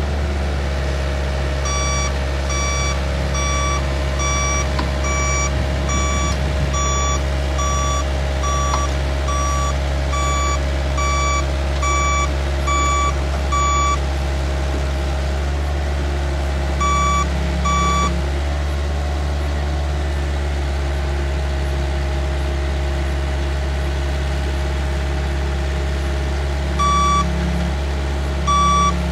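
Hitachi ZX75US-3 excavator's diesel engine running steadily as the machine tracks up onto a truck bed, with a travel alarm beeping about every 0.7 seconds. The beeping breaks off a little before the middle and comes back as two short pairs later on.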